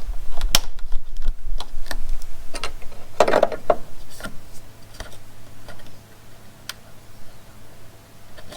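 Irregular clicks, taps and knocks of small parts being handled and fitted by hand, with a short rustle about three seconds in; the sounds thin out and get quieter after about five seconds.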